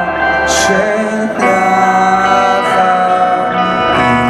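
Live band music over a PA system: guitar with singing, the chords shifting about a second and a half in.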